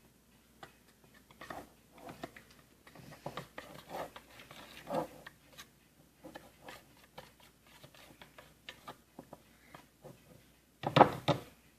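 A spoon scraping and tapping irregularly in a container as white glue and paint are mixed for slime, with a louder clatter about eleven seconds in.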